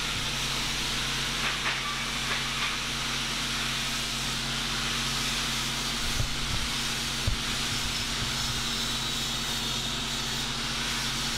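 Steady hiss with a low hum: workshop background noise, such as a running fan or other shop machinery. A few light knocks come about six to seven seconds in, as metal parts are handled.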